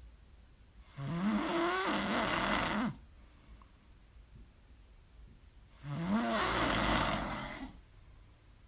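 A person snoring loudly: two long snores of about two seconds each, roughly five seconds apart, each rising in pitch as it starts.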